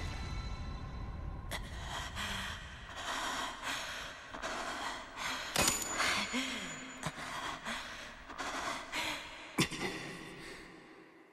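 Animated-film sound effects: a run of short, sharp bursts with glittering highs, mixed with a man's strained gasps and breaths. It fades away near the end.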